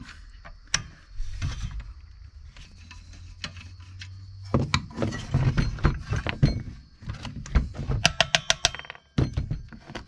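Handling noise from an old Black & Decker circular saw being taken apart with a screwdriver: knocks and thunks as the saw is turned over on the workbench, then a quick run of metallic clinks near the end.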